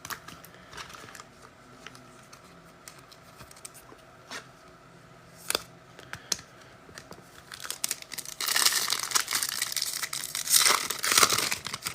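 Foil trading-card pack torn open and its wrapper crinkled: a few light clicks and taps, then about three seconds of loud crinkling and tearing near the end.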